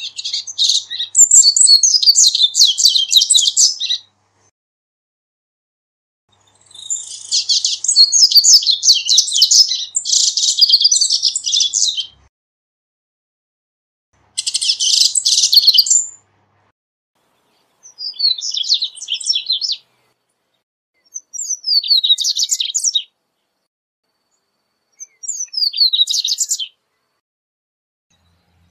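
Double-collared seedeater (corbatita) singing: six bursts of fast, high twittering notes with short pauses between them. The first two bursts are long, about four and six seconds. The later ones are shorter, made of quick downward-slurred notes.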